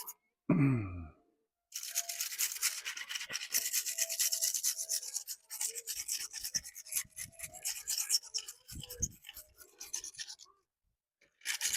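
Small wire brush scrubbing the rusty metal battery terminals of a cordless edger in quick, irregular scratchy strokes, stopping about a second before the end. The rust is being scrubbed off so the battery can make good contact.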